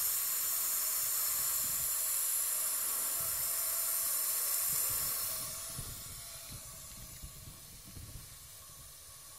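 Personal throat steam inhaler hissing strangely as it jets out mist; the hiss dies down about five and a half seconds in, as the inhaler finishes its run.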